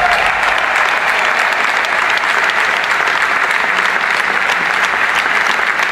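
Large arena audience applauding steadily after a song ends. The last of the band's music dies away in the first half-second.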